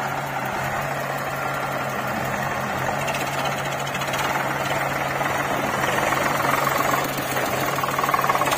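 Diesel engines of an Eicher 485 farm tractor and a JCB backhoe loader running with a heavy, knocking clatter. It grows louder over the last few seconds as the tractor moves off with its loaded trolley.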